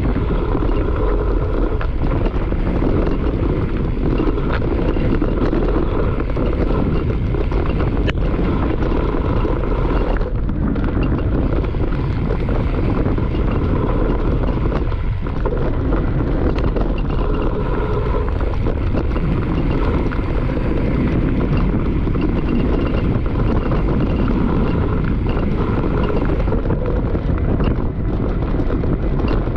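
Mountain bike riding downhill on a dirt trail: steady wind rush on the microphone over tyre roar and the rattle of the bike.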